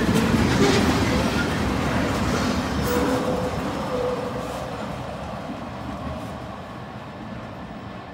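Loaded ethanol tank cars of a freight train rolling past, their wheels rumbling on the rails and fading steadily as the end of the train draws away. Two brief wheel squeals come about three and four seconds in.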